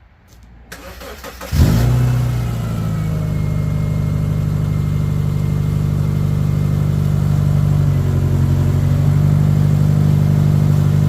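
Subaru Outback's boxer engine being started. The starter cranks for under a second, the engine catches and flares up, then settles into a steady idle.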